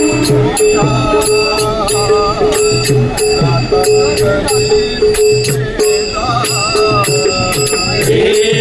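Instrumental interlude of a Marathi devotional bhajan: steady drum beats with jingling percussion, and a gliding melody over a held drone note.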